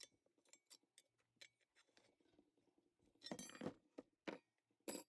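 Metal tire irons clinking and scraping against the wheel rim as the tire is levered off: faint scattered ticks, then a short scraping clatter about three seconds in and a few sharp clinks near the end.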